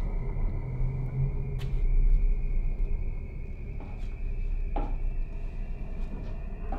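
A low steady rumble with a faint steady high whine above it, and a few separate soft knocks: footsteps on wooden stairs.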